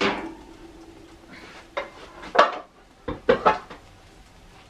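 Metal pots and pans knocking and clattering as they are shifted in the oven to get the comal out. The first knock leaves a ringing tone for about a second and a half, followed by a few sharp clatters in the middle.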